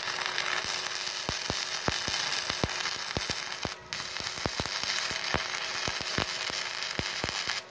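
Stick-welding arc from a Multipro EG 200A SC inverter welder, burning a 4 mm electrode at about 200 amps: steady crackling and sizzling laced with sharp pops. The arc breaks off for a moment a little under four seconds in, then strikes again and cuts off suddenly near the end.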